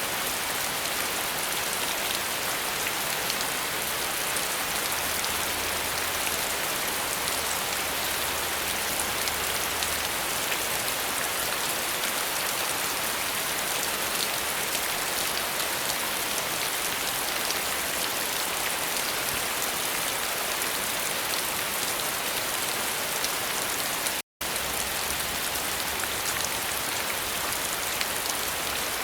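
Steady rain falling: a dense, even hiss with a fine patter of individual drops. The sound cuts out completely for a split second once, late on.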